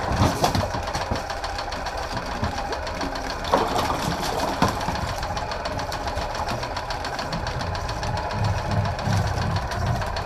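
Machinery running steadily on a commercial fishing boat, with a fast knocking rhythm, and a couple of louder clunks about three and a half and four and a half seconds in.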